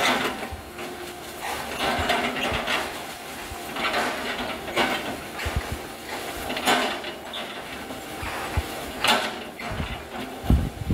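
Hitachi excavator chipping oil palm trunks: a run of noisy crunches and clacks about every one to two seconds.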